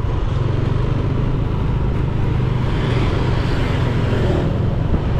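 A car driving along a street: steady engine hum and road noise.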